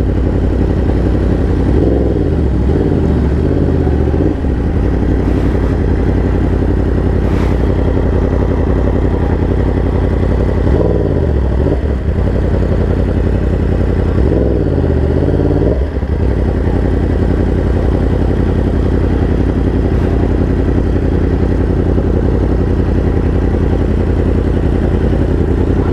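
Yamaha R1 inline-four engine running through a half-system titanium Racefit exhaust at low, steady revs while riding. Its pitch dips and climbs back three times.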